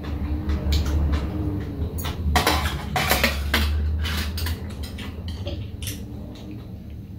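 Metal chopsticks and spoons clinking and scraping against bowls and a metal serving tray during a meal, a run of irregular clicks that is busiest about two to four seconds in, over a low steady hum.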